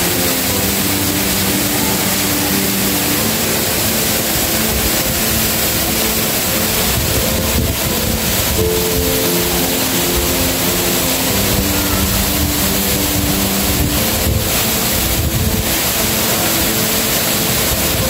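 Steady rushing roar of a waterfall, with a background music melody of short held notes playing over it.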